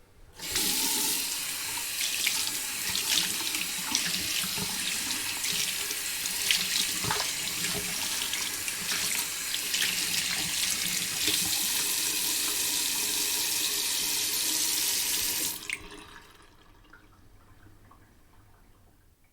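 Bathroom sink tap running while hands are washed under it, the steady stream broken by irregular small splashes. The tap is turned on about half a second in and shut off about fifteen seconds in.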